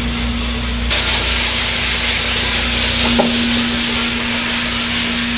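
Freshly roasted coffee beans pouring out of a Probat drum roaster into its cooling tray: a steady hiss that starts suddenly about a second in, over the machine's steady motor hum. It is the sound of the finished batch being dropped at the end of the roast.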